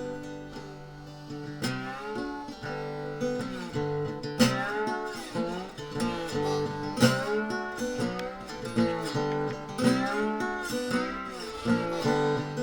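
Background music: acoustic guitar, plucked and strummed, with bending slide notes.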